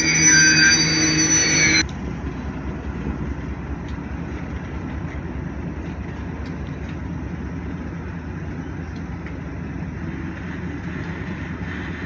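Music for the first two seconds, cut off abruptly. Then a freight train's cars rolling past: a steady rumble of wheels on the rails with occasional faint clicks.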